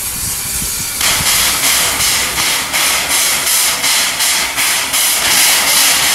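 Steam locomotive D 16 hissing steam. After about a second the hiss pulses evenly, about three beats a second.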